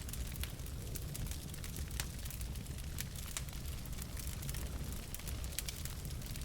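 Wood fire burning in a fireplace: logs crackling with frequent irregular sharp pops over a low steady rumble.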